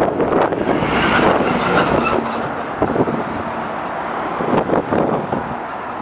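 Strong gusty wind buffeting the microphone, over the rumble and faint whine of a jet airliner's engines.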